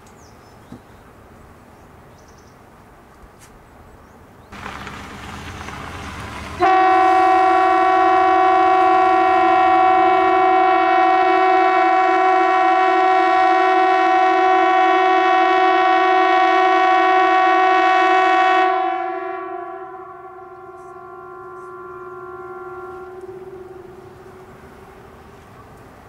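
Norwegian civil defence siren sounding one long steady blast, a chord of several tones that starts suddenly a few seconds in, holds for about twelve seconds, then fades over several seconds without falling in pitch, its lower notes lingering. A rushing noise rises shortly before the blast begins.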